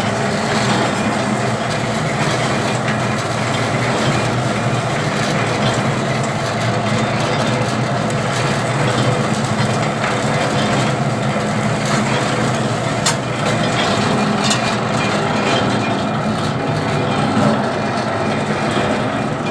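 Motorised sheet rolling machine running steadily, its rollers turning a metal sheet into a cylinder, with a steady low hum and a couple of sharp clicks in the second half.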